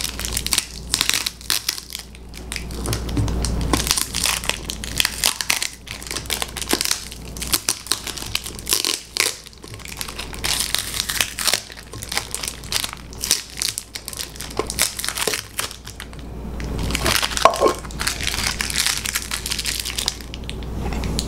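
Thin clear plastic wrapper crinkling and crackling as it is worked by hand and pulled off a small plant pot: a long, irregular run of crackles.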